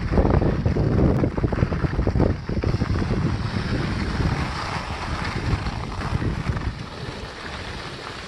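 Wind buffeting the microphone of a camera carried downhill on a ski run, heaviest in the first few seconds, over the steady hiss of a board or skis sliding on snow.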